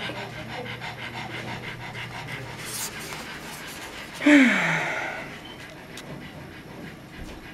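Dog panting fast and evenly, worn out after a long kennel-cough coughing fit. About four seconds in comes one brief, louder sound whose pitch falls.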